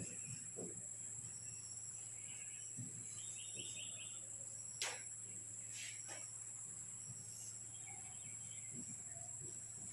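Quiet room tone with a steady high-pitched whine and faint hiss, under the faint scratch of a marker writing on a whiteboard, and one sharp tap about five seconds in.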